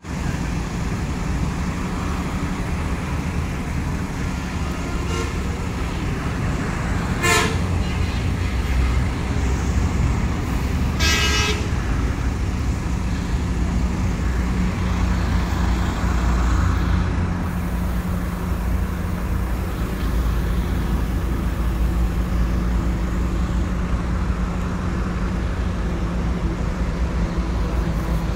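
Bus engines idling with a steady low rumble. Short vehicle horn toots sound a few times, most clearly about seven and eleven seconds in.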